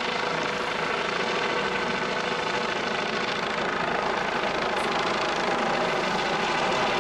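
Helicopter droning overhead, a steady engine and rotor noise that grows slightly louder.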